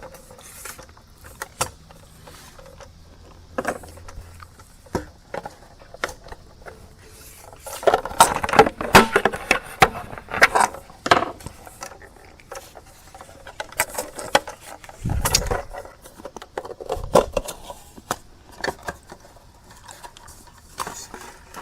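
Opening up the case of a small FM radio microphone by hand: scattered clicks, rattles and scrapes of the parts being handled and prised apart, with two dull thumps later on.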